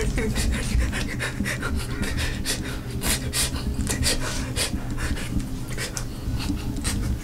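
A man panting hard in quick, ragged breaths, the breathing of someone exhausted and frightened.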